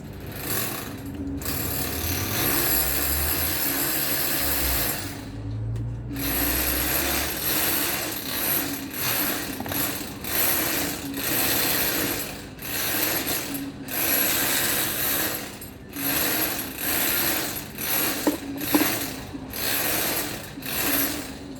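Ratchet wrench clicking as it turns a fastener: one long run of clicking near the start, then many shorter strokes with brief pauses between them.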